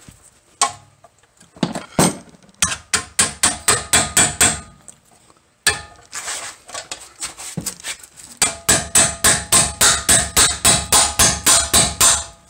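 Hammer blows on a ball-joint pickle fork, driving it in to pop a Corvette's front suspension ball joint loose. A run of about ten quick, ringing metal strikes comes a few seconds in, then after a pause a longer run of about seventeen near the end.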